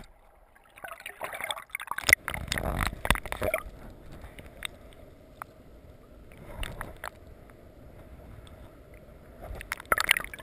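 Water sloshing and gurgling around a camera in shallow water, with scattered sharp clicks and knocks. It is loudest from about one to three and a half seconds in and again near the end, with a steadier low wash between.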